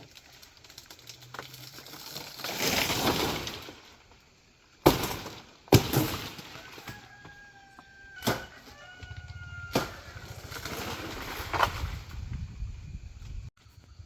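A rustling swell, then about five sharp chopping strikes on wood spaced a second or two apart, with a short bird call in between.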